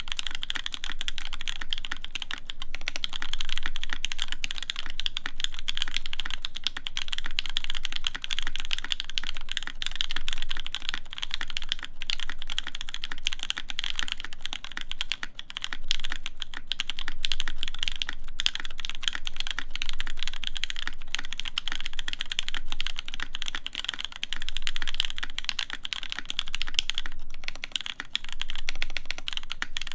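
Continuous fast typing on a mechanical keyboard with stock, unlubed Gateron Cap v2 Milky Brown tactile switches in an aluminum plate, GMK keycaps clacking under quick keystrokes.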